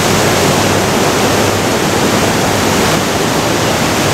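Ocean surf breaking on a rocky beach: a loud, steady rush of wave noise with no distinct events.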